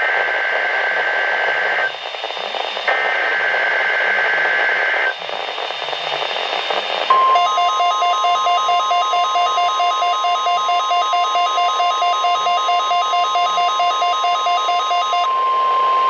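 NOAA Weather Radio over static: two bursts of SAME digital header data, a two-tone warbling screech each lasting about two seconds, then about seven seconds in the steady 1050 Hz warning alarm tone, with a rapid pulsing electronic beep over most of it. The sequence opens a weekly test of the weather radio warning alarm.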